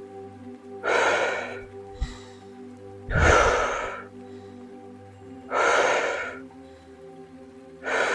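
Woman's deep, forceful Wim Hof power breathing: a loud rush of air through the mouth four times, about every two and a half seconds, during a round of 30 rapid deep breaths. Soft steady music runs underneath.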